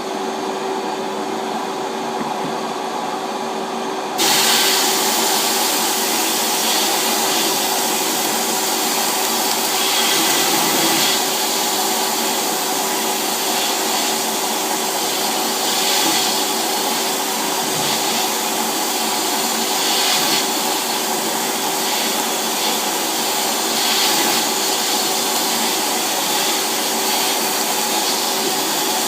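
A steady vacuum-motor drone with a hum. About four seconds in, a sandblasting cabinet's blast gun opens with a sudden, loud hiss of compressed air and abrasive, which keeps going with slight surges.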